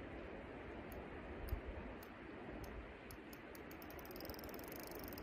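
Spinning fishing reel clicking as a fish is played on a bolognese rod: scattered clicks that speed up into a fast rattling buzz about four seconds in, over a steady background rush.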